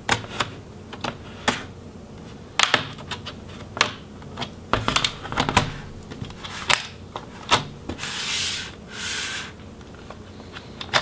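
The bottom cover of a Dell Inspiron 14 7460 laptop popping off its clips as a pry tool works around the seam: a string of separate sharp clicks and snaps. Two short rubbing scrapes come about two-thirds of the way through.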